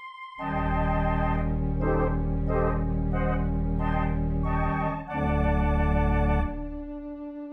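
Film-score music on organ: loud sustained chords with a deep bass, changing to a new chord about five seconds in, then dropping to a quieter held note near the end.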